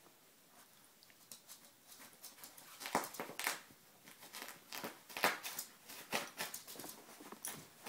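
Chihuahua humping a pillow in its fabric dog bed: quick, uneven rustling and scuffing strokes of cloth. The strokes grow louder and come thicker from about three seconds in.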